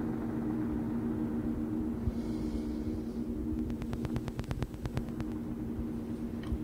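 No-input feedback drone from a Behringer Eurorack mixer, run through a Hologram Microcosm, holding steady low tones. About three and a half seconds in, a quick run of rapid clicks, roughly eight a second, lasts just over a second.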